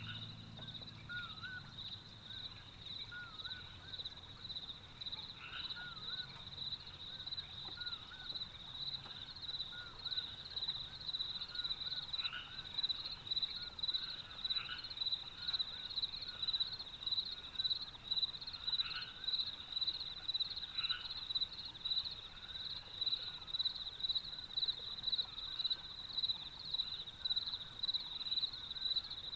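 Crickets trilling steadily in one high, finely pulsed note, with short curling chirps repeated every second or so beneath it.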